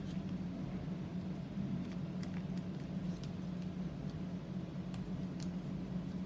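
A sheet of origami paper being folded and creased by hand, giving soft, scattered crinkles and taps. Under them runs a steady low hum.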